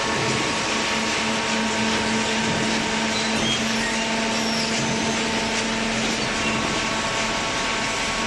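A cardboard baler machine running steadily, a constant hum under a loud even hiss.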